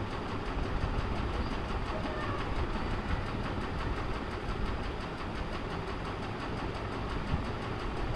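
Steady low rumbling background noise, unchanging throughout, with no distinct events.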